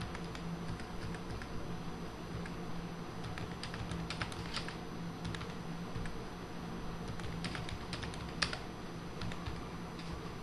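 Computer keyboard keys tapped in scattered, irregular short runs as numbers are typed, over a steady low hum.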